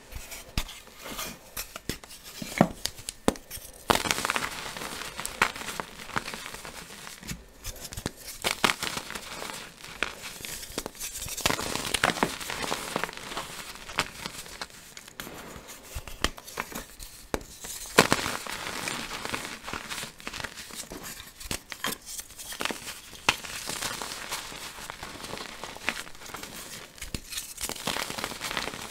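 Blue-green dyed gym chalk being crushed and crumbled in bare hands over a pile of loose chalk powder: irregular sharp crackles and crunches over a soft powdery rustle.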